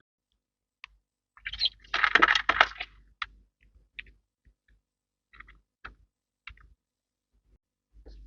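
A short, dense clatter of clicks and knocks from small hard objects about a second and a half in, followed by a few scattered single clicks.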